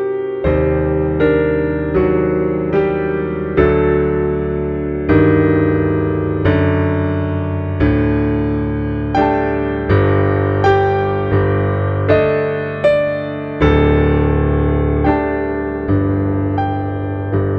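Slow piano music: a melody of single struck notes over sustained bass chords, a new note about every three-quarters of a second.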